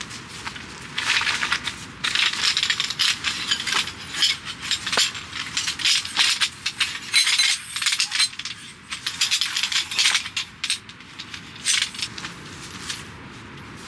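Metal poles of a folding camp stand clinking and rattling as they are taken from a nylon stuff sack and fitted together, with the bag rustling. The handling is busiest through the middle and thins out near the end.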